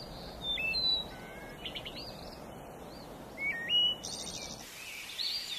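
Several birds chirping and whistling, a scatter of short clear notes, some jumping in pitch, over a steady low background hiss that drops away near the end.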